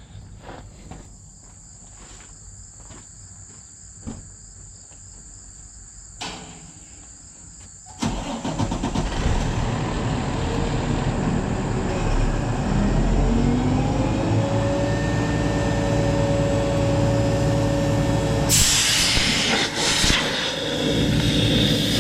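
A gas-powered blower engine starts about a third of the way in, revs up with a rising whine and settles at a steady high speed. Near the end a loud rush of air sets in as the blower blows chaff and hay out of the baler.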